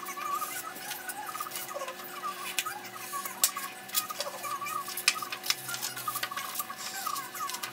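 Sheets of cardstock being handled and folded on a cutting mat: irregular crisp clicks and crackles, over a recurring wavering chirping sound.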